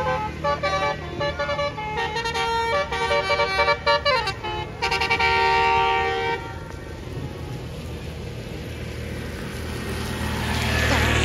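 A bus's Basuri multi-tone telolet horn playing a quick tune of stepped notes, with a short downward slide, then holding a chord for about a second and a half before cutting off about six seconds in. Engine and road noise follows and swells near the end.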